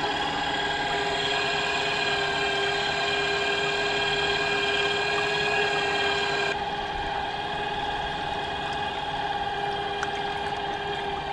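DIY 18 V electric outboard (an HRS 775 cordless-drill motor and gearbox spinning an 8 x 4 inch APC model aircraft propeller, fed straight from solar panels) running steadily: a whine of several steady tones over the wash of water. About two-thirds of the way through, the hiss in the upper range drops off and the lowest tone weakens.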